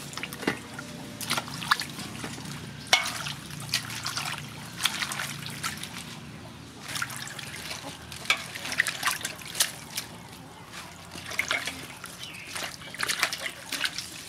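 Hands washing leafy greens in a large aluminium basin of water: irregular sloshing and splashing, with water trickling and dripping off the leaves as they are lifted out.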